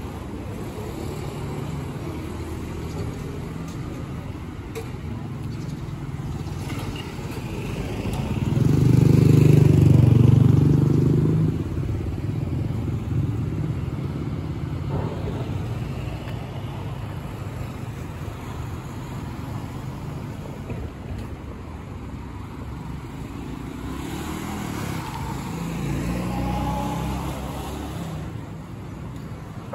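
Street traffic rumbling steadily, with one motor vehicle passing close and loud about a third of the way in, and a smaller pass near the end.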